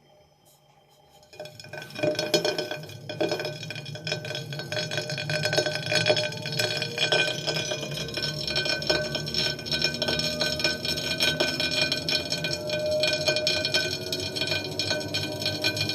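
Tacx Neo direct-drive smart trainer spinning with its cassette removed, starting about a second in. A steady run of fine clinks and grinding mixed with ringing tones comes from its disc, a fault noise.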